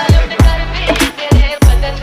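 Background music: a song with a heavy bass beat.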